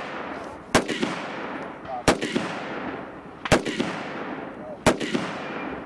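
Rifle fired from the shoulder in single shots, four sharp reports about a second and a half apart, each trailing off in a long echo across the range.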